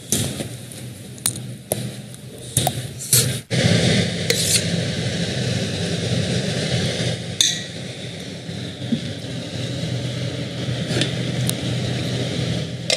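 Metal kitchen utensils knocking, scraping and clinking as food is ladled from steel pots onto a plate, with several sharp knocks in the first three and a half seconds. A steady low hum with a rushing noise then sets in, with a few more clinks.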